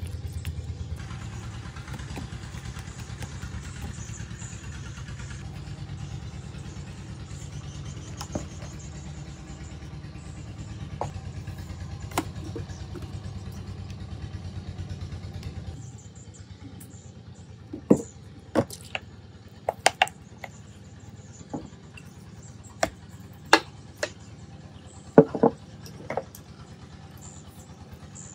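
A steady low engine-like rumble that stops abruptly about halfway through. Then comes a string of sharp clicks and knocks from sauce bottles, their caps and utensils against a ceramic bowl, with a close double knock near the end.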